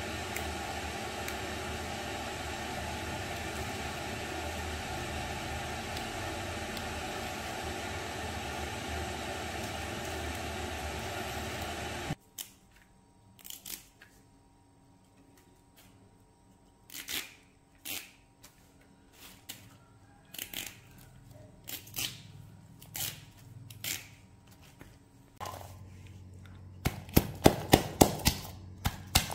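A steady hiss for the first twelve seconds or so, then faint scattered rustles and small clicks as agati leaves and flowers are handled. Near the end a wooden pestle pounds garlic in a wooden mortar: sharp, even strikes about two a second.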